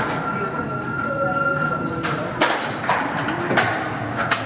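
Santiago Metro NS16 train standing at a station platform just after coming to a stop: a steady high whine cuts off about halfway, then a few sharp knocks over a low interior rumble.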